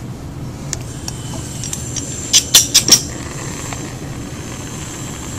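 Lab bench gas tap opened, gas hissing steadily through the hose to the burner, with four quick sharp clicks about two and a half seconds in as the burner is lit.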